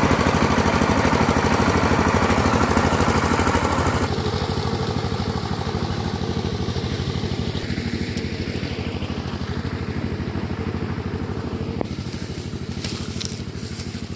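Engine of a small wheat combine harvester running steadily with a fast, even beat. About four seconds in it becomes abruptly less bright, then slowly grows quieter.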